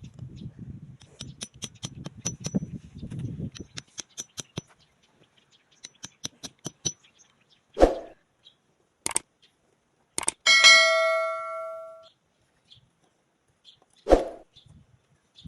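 Small objects being handled and set down: rustling and a quick run of light clicks, then a few separate knocks, and one struck metallic clink about ten seconds in that rings like a small bell for a second or so.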